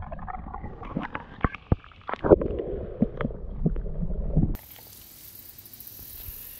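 Water sloshing and gurgling around a GoPro's waterproof housing as it dips below the creek surface, heard muffled with dull knocks and splashes. About four and a half seconds in it cuts off abruptly to a faint steady hiss.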